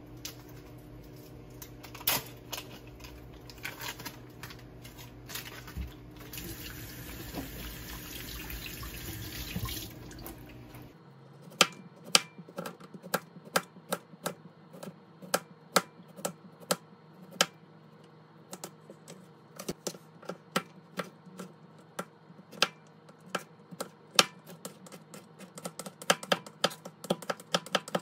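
Kitchen knife chopping cucumber on a plastic cutting board: a quick, uneven run of sharp knocks, a few each second, starting about eleven seconds in. Before that, a tap runs briefly over a low hum and scattered clicks.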